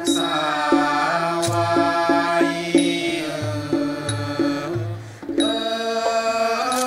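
Thai song of royal praise sung in long held notes with instrumental accompaniment over a low alternating bass line. A bright ringing strike comes about a second and a half in and again near the end.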